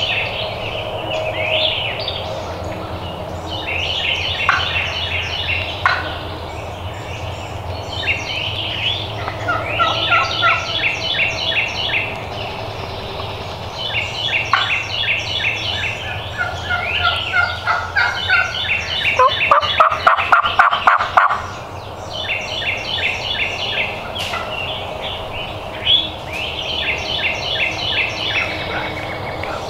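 Wild turkey gobbling repeatedly, the loudest and closest bout about two-thirds of the way in, with songbirds singing throughout.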